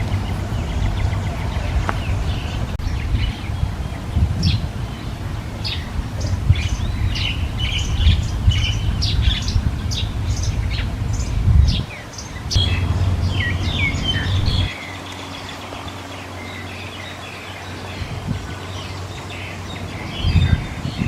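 Baby birds chirping in many short, quick, high peeps, thickest in the middle, over a steady low rumble that stops about two-thirds of the way through.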